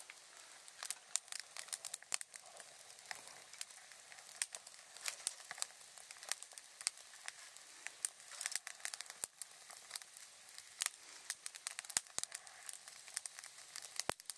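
Kindling and split firewood burning as a fire catches, crackling with many irregular sharp pops over a faint hiss.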